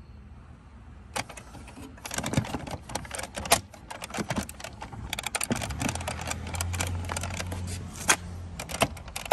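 Hard plastic and metal radio-mounting parts clicking and rattling as they are handled and test-fitted together, with a run of sharp clicks starting about a second in.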